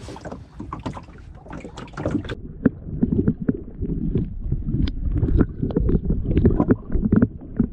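Knocks and water noise, then about two and a half seconds in the sound turns muffled as the camera goes under the water: low sloshing and knocking heard through the submerged camera.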